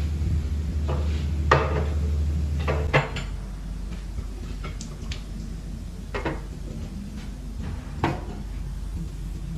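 Metal tools and engine parts clinking and knocking as they are handled, about seven separate knocks spaced a second or two apart. A steady low hum lies under them and drops away about three seconds in.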